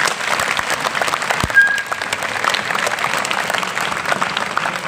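An audience of schoolchildren applauding, many hands clapping steadily. A brief thump and a short high tone come about a second and a half in.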